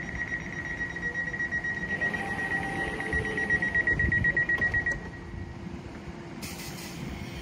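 Electric train's door-closing warning tone: one steady high beep for about five seconds that turns into a rapid pulsing beep before it stops. Near the end a hiss starts up.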